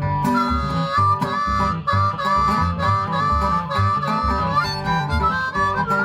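Blues harmonica solo of long held notes that bend in pitch, over strummed acoustic guitar and the low plucked pulse of a washtub bass.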